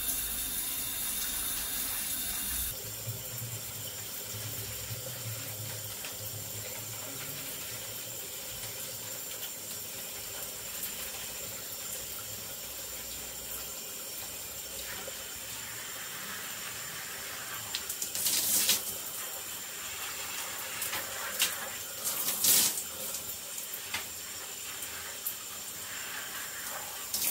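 Rain-style overhead shower head running steadily, its spray falling on a person's head and the tiled floor, with a few short louder spells after about eighteen seconds.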